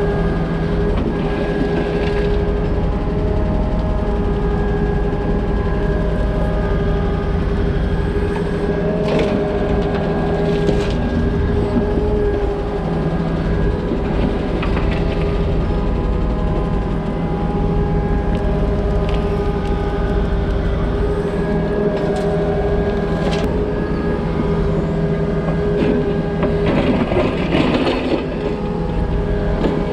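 Takeuchi compact excavator's diesel engine and hydraulics running steadily as it digs, with several short knocks and scrapes of the steel bucket in rocky soil, the loudest scraping near the end.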